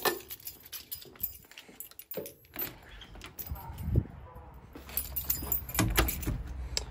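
Keys jangling as a bunch is lifted off a wall hook, then clicks and knocks of handling, and a front door pulled shut with a thump near the end.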